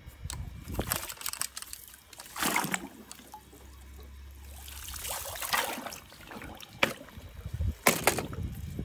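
Pool skimmer net swishing through swimming-pool water and lifted out, water splashing and trickling out through the mesh, with a few sharp knocks.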